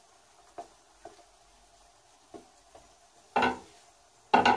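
Wooden spatula tapping and scraping in a non-stick frying pan while spreading beaten egg over leeks. A few soft taps come first, then louder knocks against the pan about three and a half seconds in and again near the end.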